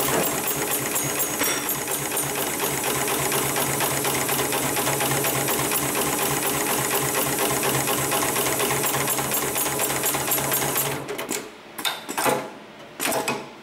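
A HIGHTEX 7273PLK automated heavy-duty pattern sewing machine runs fast and steady, stitching through thick harness webbing. It stops about three seconds before the end, followed by a few short, sharp mechanical noises.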